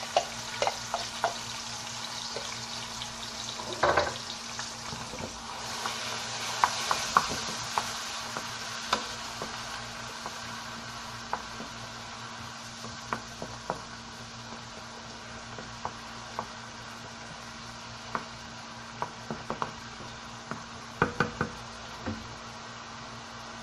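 Food sizzling in a frying pan while a wooden spoon stirs and scrapes it, with sharp taps of the spoon against the pan and bowl. The sizzle swells about six seconds in, and there is a quick run of knocks near the end.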